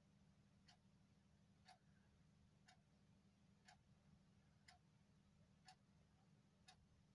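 Near silence with faint, even ticks about once a second over a low steady hum.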